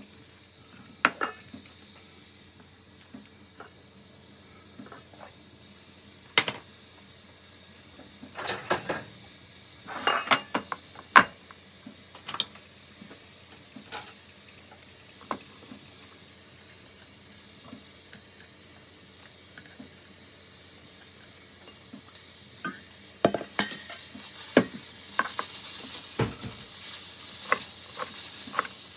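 Scattered clinks and knocks from a stainless steel mixing bowl and kitchenware as green onions are handled, then a knife chopping green onion on a plastic cutting board in a quick run of knocks over the last several seconds. A steady high hiss grows louder underneath.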